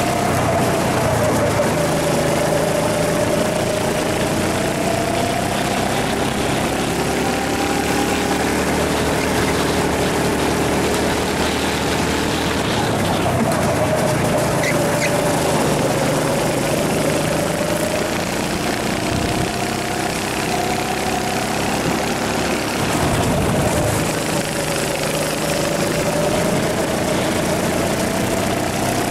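Rental go-kart engine heard from onboard at racing speed. Its pitch sags three times as the kart slows for corners and climbs again on the straights, over a steady rushing noise.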